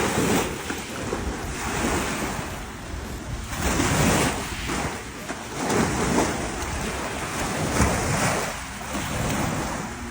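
Waves washing onto a reservoir shore in a steady wind, with wind buffeting the microphone. The rush of water swells and eases every second or two.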